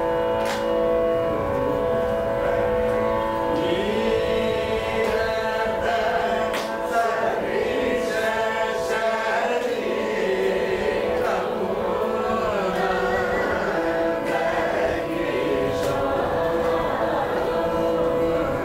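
Carnatic vocal music: a group of voices singing together over a steady drone.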